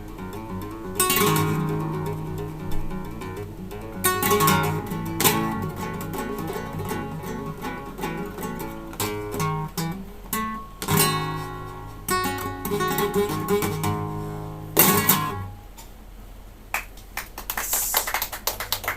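Solo classical guitar playing plucked lines broken by loud strummed chords; the piece ends on a final strummed chord about fifteen seconds in. A small audience starts clapping near the end.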